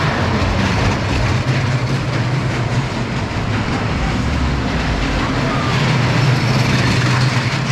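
Steel roller coaster car running along its track overhead: a steady rolling rumble with a low hum beneath, growing a little louder near the end.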